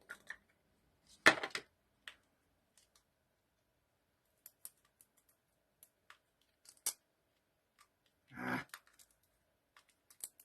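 Hands handling cosmetic packaging: scattered small clicks and taps, with a sharp clack about a second in and a brief rustle near the end.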